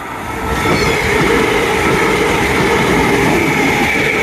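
Elizabeth line Class 345 electric train running through the station at speed without stopping: the noise of its wheels on the rails builds over the first second as it arrives, then stays loud and steady, with a steady whine over it.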